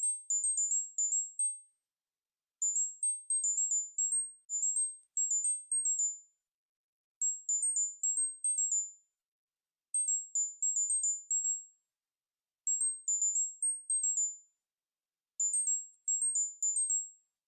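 Synthesized tinnitus-relief tone pattern: very high-pitched pure electronic beeps in quick runs of about eight notes stepping up and down in pitch. Each run lasts about a second and a half, with a pause of about a second between runs, and the pattern repeats steadily.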